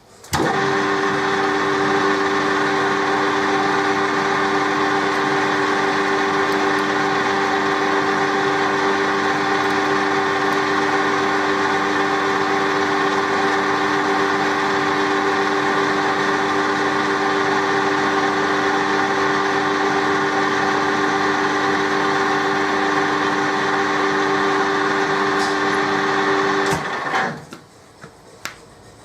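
Colchester metal lathe running steadily with a constant two-note gear whine while taking a light 5 thou cut off a round workpiece. It starts suddenly right at the beginning and winds down quickly a couple of seconds before the end, followed by a click or two.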